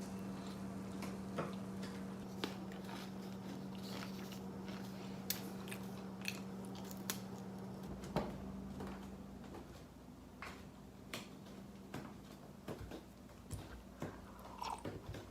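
A steady low hum with scattered small clicks and taps of kitchen handling over it.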